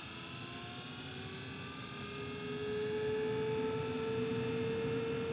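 Carrier Infinity 98 gas furnace's variable-speed inducer fan motor spinning up at the start of a heating cycle: a whine with several tones that rises in pitch, then levels off to a steady hum over the last couple of seconds.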